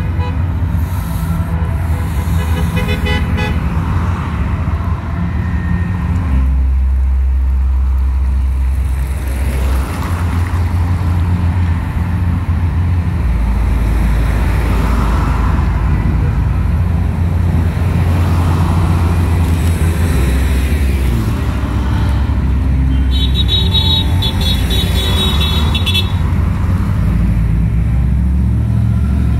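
Cars driving past honking their horns in support of hospital staff, with a run of short repeated toots about two to three seconds in and another around twenty-three seconds in, over steady traffic rumble.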